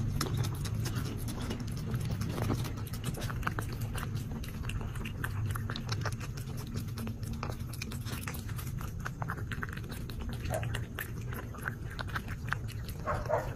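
A cat eating from a small bowl: quick, irregular wet chewing and licking clicks over a steady low hum.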